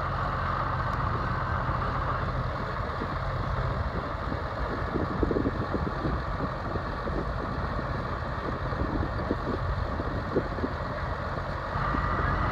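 Deuce-and-a-half army truck's engine running steadily while a worm-drive electric winch drags the truck slowly out of deep mud on a triple-line pull. A steady whine sits over the engine hum, fading in the middle and coming back strongly near the end, with scattered crackles in the middle.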